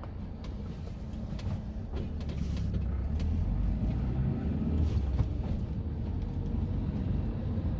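Lada Granta driving, heard from inside the closed cabin: a low, steady hum of the engine and manual gearbox over road and tyre rumble, swelling a little a couple of seconds in, with a few light knocks. The gearbox gives only its ordinary running noise, no distinct whine.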